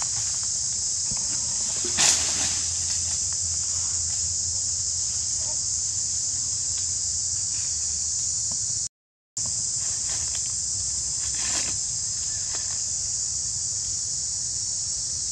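Steady high-pitched drone of forest insects, with a few short rustles and taps over it. The sound cuts out for a moment about nine seconds in.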